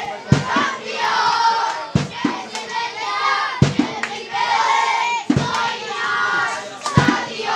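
Football supporters chanting together. A pair of loud beats, claps or drum strikes, comes about every one and a half seconds.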